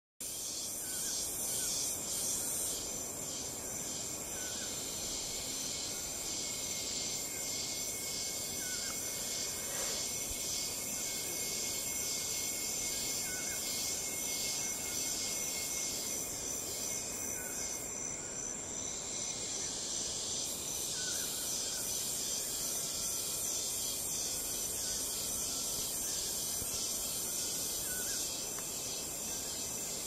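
Tropical rainforest ambience: a steady high-pitched insect chorus that pulses regularly, with short bird chirps every few seconds.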